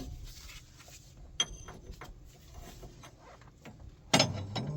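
Wrench work on a hydraulic hose fitting: quiet handling noise, a single sharp metallic clink about a second and a half in, and a louder noise near the end.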